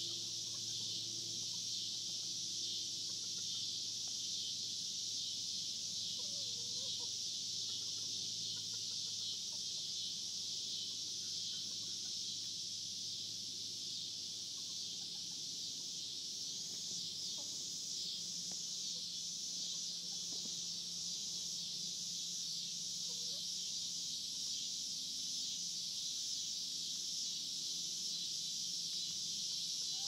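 Cicadas singing in a steady, unbroken high-pitched chorus, with a few soft chicken clucks now and then.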